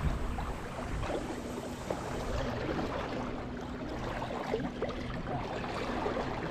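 Steady wash of seawater with a faint low drone that comes and goes and a few small ticks.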